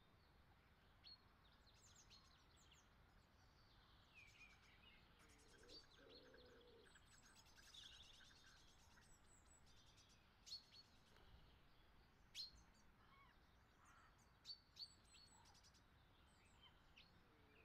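Faint birdsong: scattered short chirps and calls, with a few sharper single chirps standing out in the second half.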